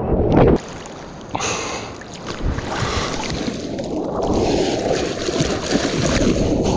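Water splashing and rushing past a surfboard as the surfer paddles into a wave and starts riding it, with spray hissing off the board's rail. The sound drops away suddenly about half a second in, then a rushing hiss builds and grows stronger in the second half.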